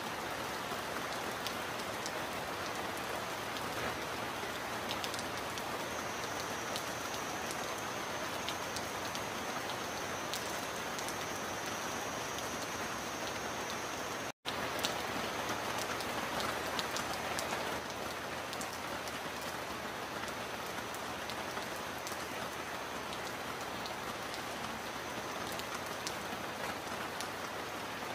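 Steady heavy rain on a metal roof, with fine ticks of single drops scattered through the downpour. The sound cuts out for an instant about halfway through, then carries on.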